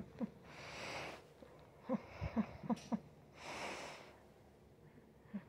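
Small dog snuffling and grunting: a series of short low grunts, with two longer breathy huffs of air, about one second and about three and a half seconds in.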